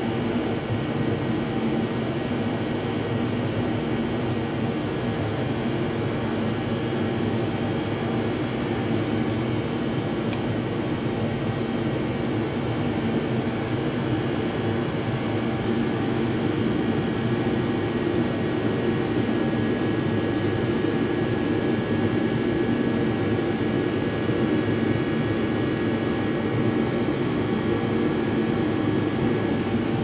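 A steady, loud mechanical rushing drone with a few faint steady hums in it. It holds level throughout with no distinct events.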